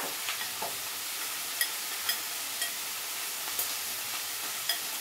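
Broccoli and shrimp stir-fry sizzling steadily in a frying pan over medium heat, with several short sharp clicks spread through it.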